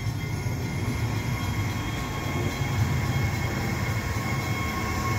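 EXO MR90 electric multiple-unit commuter train moving off from a station stop at low speed: a steady low rumble of the cars on the rails, with a faint steady whine above it.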